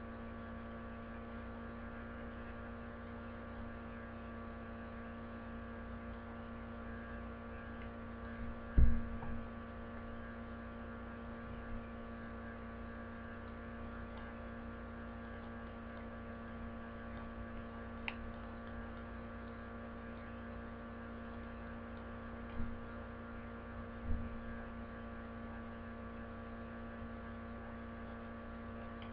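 Steady electrical mains hum with many evenly spaced overtones, picked up by the recording setup, with a few dull low thumps, the loudest about nine seconds in and two smaller ones near the end.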